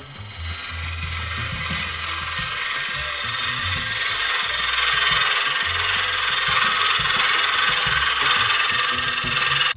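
Wood lathe running with a walnut hollow form spinning on it. A low steady motor hum sits under a loud, even hiss that builds over the first few seconds and cuts off suddenly at the end.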